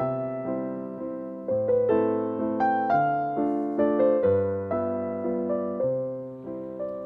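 Background piano music: an unhurried melody over chords, each note struck and then fading away.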